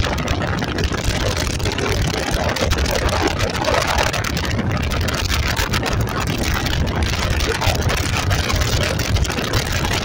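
Wind buffeting the microphone on a motorcycle riding at about 70 km/h, a loud steady rush with the engine and tyre noise underneath.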